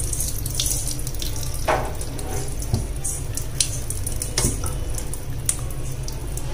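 Kitchen tap running into a sink while a cut lobster tail is rinsed under it and rubbed by gloved hands, with a few short splashes and knocks.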